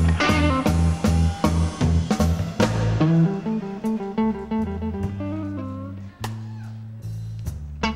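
Live blues band playing electric guitar over bass and drums. About three seconds in the band drops back to a quieter, sparser passage with long held bass notes and few drum hits, then starts to build again near the end.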